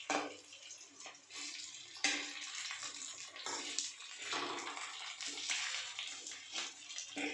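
Fish pieces sizzling as they shallow-fry in oil in a steel kadai, with a flat metal spatula scraping and knocking against the pan a few times as the pieces are turned.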